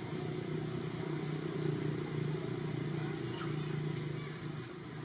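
Steady low drone of a running engine, with a thin, steady high whine above it.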